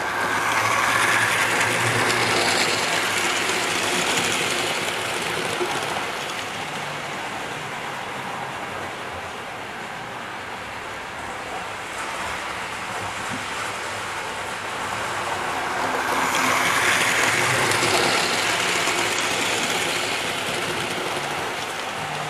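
Model railway locomotive running on its track, the whirr of its motor and wheels on the rails swelling and fading twice, about fifteen seconds apart, as it passes close by on a loop.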